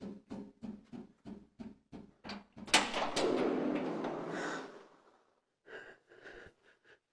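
Steady rapid knocking or patting on a door, about three knocks a second. About three seconds in comes a louder clatter, followed by roughly two seconds of rustling noise, then a few faint taps.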